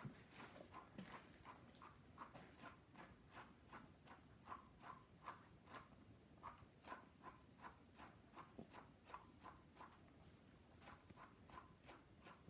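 Wire slicker brush raking through a long-haired dog's thick coat in quick, even strokes, about two or three a second, each a short faint scratch.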